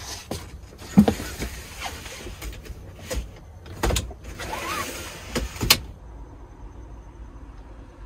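Handling noises in a van cab: knocks, clicks and rustling as someone climbs between the front seats and works at the windscreen. A few sharp thumps stand out, the loudest about a second in and another near six seconds, with a stretch of rustling just before it.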